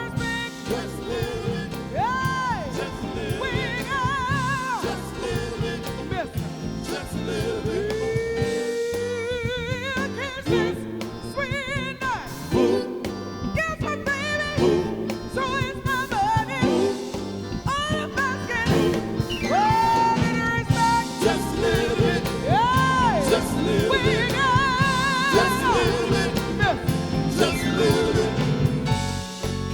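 A live soul band playing, with a lead melody of long held notes that swoop up and down with a wide vibrato over the rhythm section.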